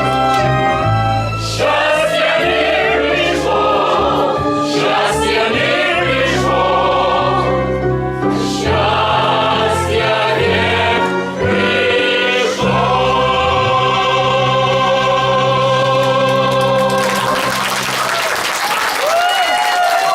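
Musical-theatre cast singing the finale in chorus over instrumental accompaniment, with long held notes. About three-quarters of the way through, audience applause breaks out under the final sung note.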